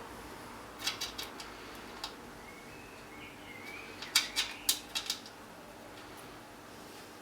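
Clicks and taps from motherboard stand-offs being fitted into a PC case: a few light ones about a second in, then a louder run of about six around four to five seconds in. Faint high chirps sound between them.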